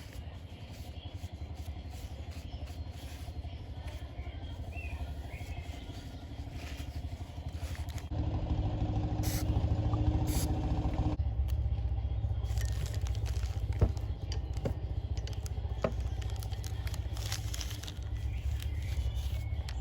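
A motor running steadily with a fast, even rhythm, louder for a few seconds near the middle, with a few sharp clicks later.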